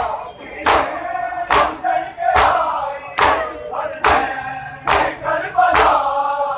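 Chest-beating (matam) by a large crowd of men: open hands strike bare chests together in unison, a sharp slap about every 0.8 seconds. Between the slaps the men's voices chant in chorus.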